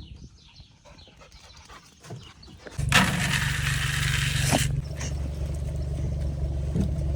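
A vehicle engine starts about three seconds in, with a loud rush of noise for about a second and a half, then settles into steady running.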